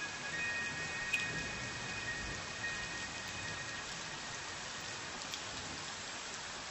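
Steady soft rain, an even patter of drops. In the first half, a few held high tones from the background music sound over the rain and fade out.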